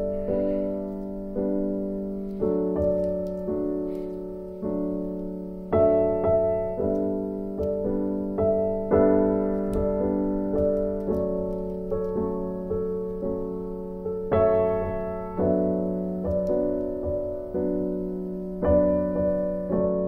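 Background music: keyboard chords struck about once a second, each note fading before the next strike.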